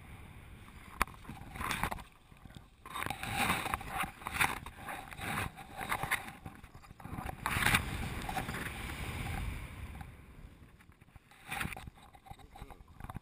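Airflow rushing over a harness-mounted camera in paraglider flight, swelling and fading in uneven surges and strongest about two-thirds of the way through.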